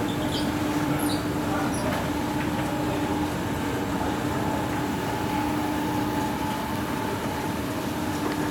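Escalator running while it is ridden up: a steady mechanical hum with a constant low tone, and a few faint high squeaks in the first two seconds.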